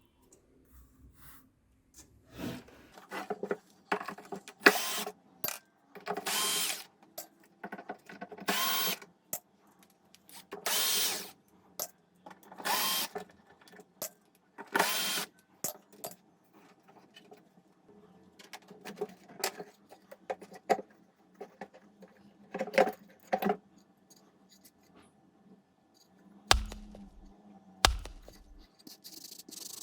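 A small power drill run in about six short bursts roughly two seconds apart, with lighter clattering of parts between them and two low thumps near the end.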